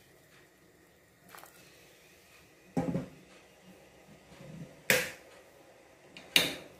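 Kitchen cookware and utensils clattering: three sharp knocks, each about one and a half to two seconds after the last, with quiet between.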